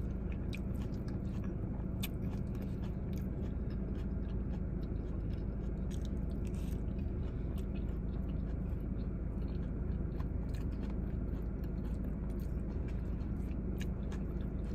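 A person chewing a mouthful of lettuce salad, with many small scattered clicks and crunches, over a steady low hum inside a car.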